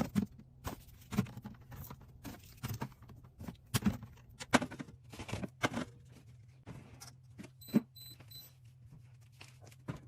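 Irregular clicks, taps and knocks of containers and packaged items being handled and set down, as in a fridge restock, over a steady low hum. Three short high beeps sound about eight seconds in.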